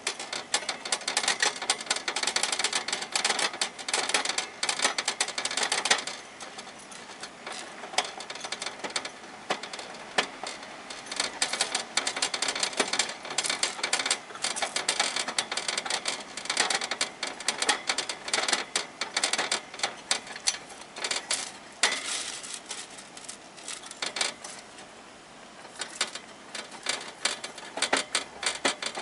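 Hamster gnawing on the metal wire bars of its cage: rapid clicking and rattling of teeth on the bars, in runs broken by a couple of quieter pauses.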